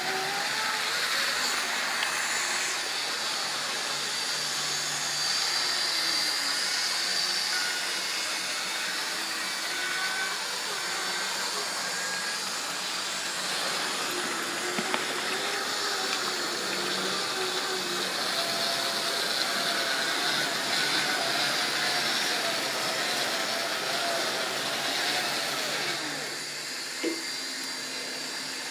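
Model railway locomotive running a train around the track: an electric motor whine that wavers up and down in pitch over a steady hiss of wheels on rail. Near the end the sound drops and the whine falls away, followed by a single sharp click.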